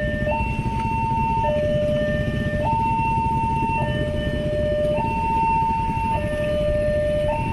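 Railway level-crossing electronic warning alarm sounding a two-tone hi-lo signal, switching between a higher and a lower note a little more than once a second, over a low rumble of waiting road traffic. It means the barrier is down and a train is approaching.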